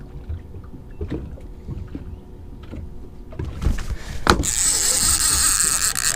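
Knocks of feet on the fiberglass boat deck, then from about four seconds in a loud steady buzz of a fishing reel's drag as a hooked fish strips line off the rod in its holder.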